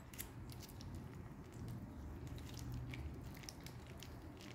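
Faint wet squelching of thick curd being squeezed out of a plastic pouch, with scattered light clicks and crinkles from the pouch as it is pressed.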